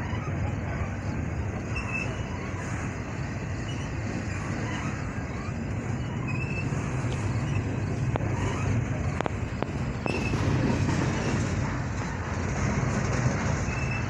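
Double-stack intermodal well cars rolling past: a steady rumble of steel wheels on the rails, with a few sharp clicks about eight to ten seconds in.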